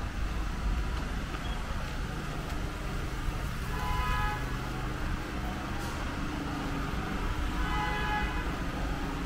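Steady low city traffic rumble, with a vehicle horn honking twice, about four seconds apart.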